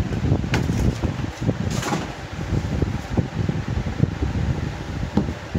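Handling of phone boxes and packaging over a steady low rumble, with a sharp click about half a second in and a short rustling scrape just under two seconds in.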